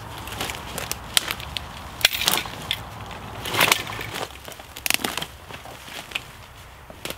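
Dead twigs and brush crackling and snapping underfoot and as a long dead branch is pulled out through tangled undergrowth, in irregular sharp snaps with the loudest about two seconds and three and a half seconds in.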